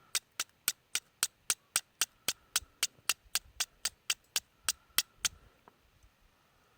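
Steel striker struck repeatedly against flint to throw sparks: about twenty sharp, evenly paced strikes, about four a second, which stop about five seconds in.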